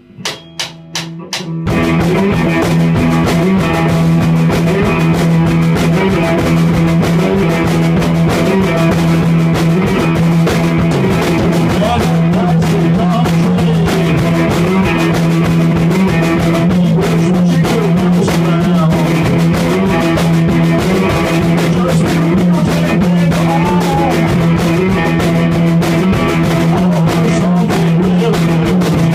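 Electric cigar box guitar strummed in a fast, driving rock-blues groove, ringing over a steady low drone note, with a busy drum beat underneath. About six quick evenly spaced clicks come first, and the full music starts about two seconds in.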